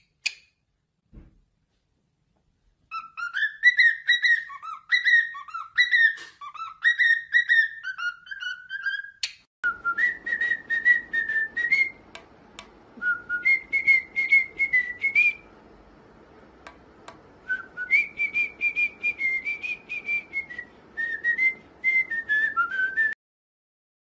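Cockatiels whistling tunes: a run of short, warbling whistled phrases, then, after a cut, another cockatiel whistling a higher, longer-held melody over faint background hiss.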